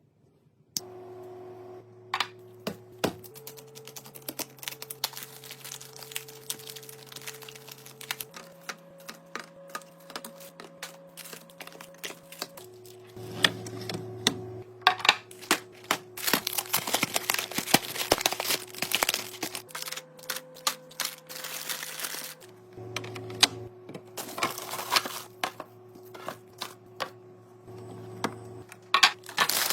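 Clicks, taps and crinkles of plastic containers and packaging being set into a fridge, coming thick and fast, over background music of slow sustained chords that change every few seconds.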